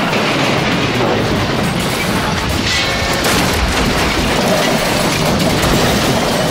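Steam locomotive crash sound effect: a loud, continuous rumble of collision and blast noise that holds steady throughout, with no separate impacts standing out.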